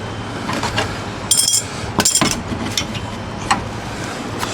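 Small metal parts and hardware clinking and knocking as they are handled, about half a dozen sharp clicks with a quick cluster of them a second or so in, over a steady low hum.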